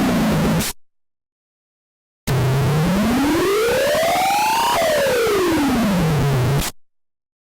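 Synthesized cartoon sound effect: a buzzy electronic tone finishes a downward slide and cuts off, then after a second and a half of silence a new buzzy tone slides smoothly up in pitch for about two and a half seconds and back down for about two, ending abruptly.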